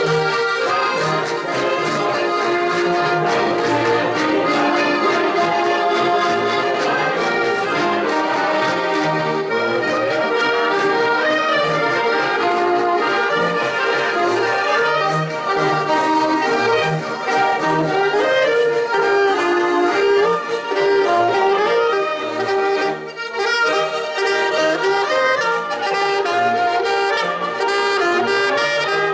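Live Austrian folk music: several Styrian diatonic button accordions (Steirische Harmonika) playing a lively tune together with an alto saxophone, over a regular pulsing bass line.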